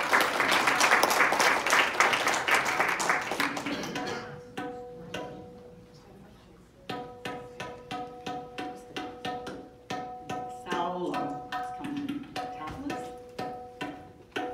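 Audience applause for about four seconds, then a tabla playing a steady run of strokes, about two a second, each ringing with a clear pitched tone.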